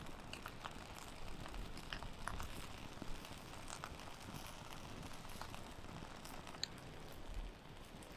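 Wood fire crackling faintly, with small irregular pops and ticks.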